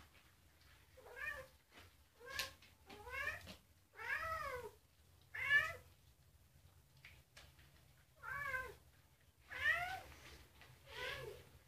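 A cat meowing repeatedly, about eight drawn-out meows that each rise and then fall in pitch, with a short pause near the middle.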